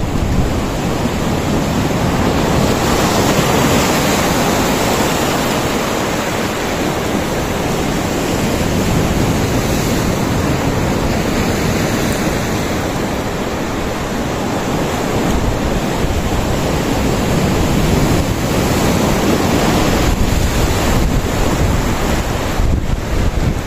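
Ocean surf washing and breaking over rocky shore ledges and tide pools, rising and falling in slow swells, with wind buffeting the microphone.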